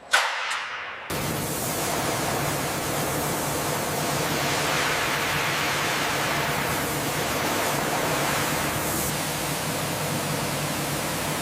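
A steady rushing noise with a faint low hum, starting about a second in after a short sharp sound.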